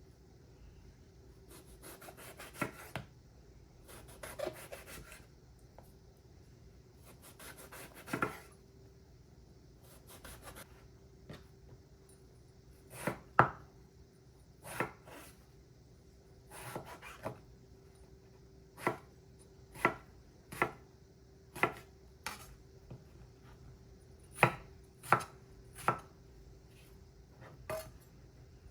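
A kitchen knife cutting vegetables on a cutting board: a few drawn-out slicing strokes in the first half, then single sharp chops about once a second. A faint steady hum runs underneath.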